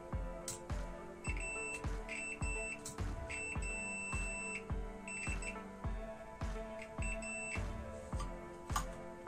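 Background music with a steady beat, overlaid by a digital multimeter's continuity buzzer beeping on and off as the test probes touch points on the transformer board. The beeps come in short blips, with one longer beep about three to four seconds in.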